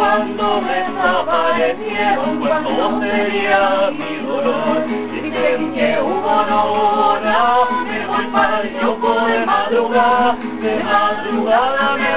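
A song sung to a strummed acoustic guitar, with the voice carrying a melody over steady chords.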